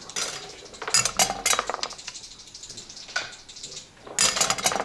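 Backgammon checkers clicking as they are slid and set down on the board in several quick clusters, then dice rattling in a hand and clattering onto the board near the end.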